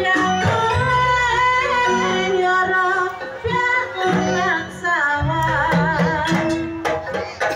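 Live Javanese gamelan accompaniment for jaranan dance: a female singer's wavering, ornamented melody over the ringing metallophones and drum of the ensemble.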